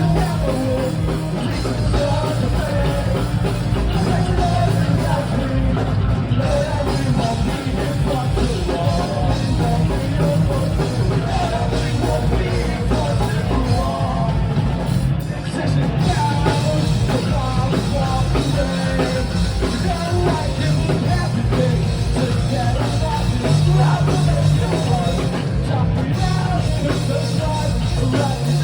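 Loud rock music: a band playing with a singer's voice over it, with heavy bass throughout.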